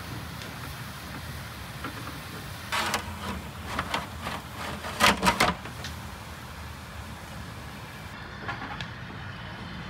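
Metal lid being handled and set onto a tall aluminium steamer pot: a few clanks and scrapes, the loudest a quick pair of knocks about five seconds in, over a steady low rumble.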